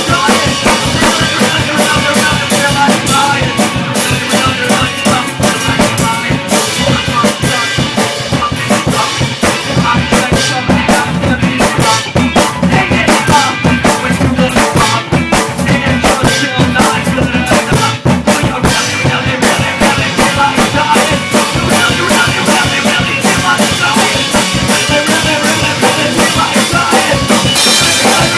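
Band demo recording of a rock song: the drum kit drives a fast, busy beat with bass drum, snare and rimshots over the rest of the band, loud and steady throughout.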